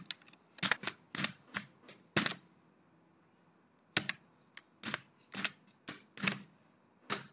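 Computer keyboard keys pressed one at a time, about a dozen separate keystrokes with a pause of nearly two seconds in the middle, as a short formula is typed.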